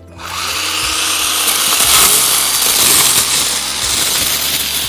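WORX cordless pole pruner's small battery chainsaw running, its chain spinning loud for about five seconds, starting suddenly and dying away at the end.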